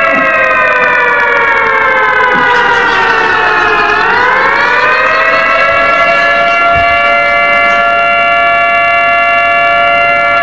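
Siren wailing. Its pitch slides slowly down for about four seconds, climbs back up, then holds steady until it cuts off near the end.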